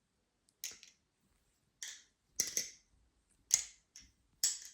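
Balisong trainer being flipped through the fan move: its handles and blade clack together in about seven sharp metallic clicks at irregular spacing, a few coming in quick pairs.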